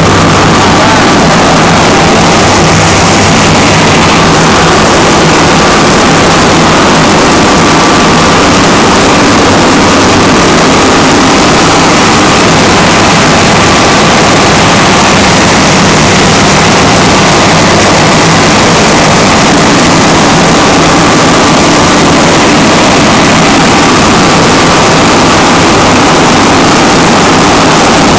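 Cummins diesel standby generator set running at steady speed during a mains power outage, very loud and close.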